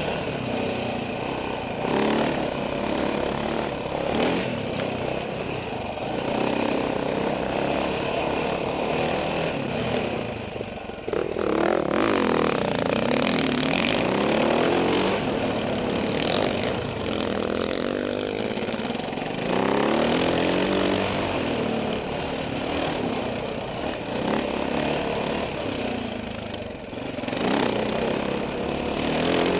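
Husaberg FE570 single-cylinder four-stroke dirt bike engine running under load as it is ridden, the throttle opening and closing so the revs rise and fall, with the hardest revving about eleven seconds in and again near twenty seconds.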